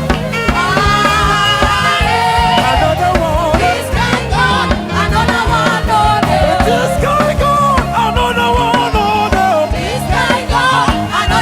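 Live gospel praise music: singing over a full band with drums and a steady beat.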